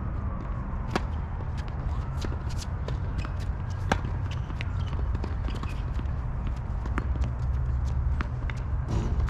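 Tennis ball struck by rackets during a rally on a hard court: the serve about a second in and a sharp racket hit near four seconds, with fainter pops from other shots in between. A steady low rumble runs underneath.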